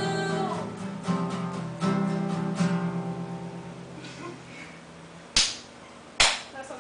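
Acoustic guitars strum the final chords of a song and let them ring out and fade, after a last sung note at the start. Near the end come two short, sharp hits about a second apart.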